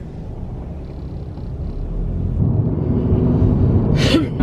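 Car engine and road noise rumbling inside the cabin while driving, growing louder about halfway through.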